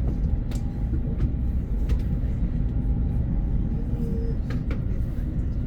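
Steady low rumble of a train in motion, with a few faint clicks.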